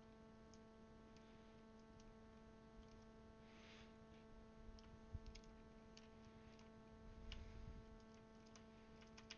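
Faint, scattered clicks of plastic keycaps being handled and pushed onto the switches of a Das Keyboard mechanical keyboard, over a steady low electrical hum.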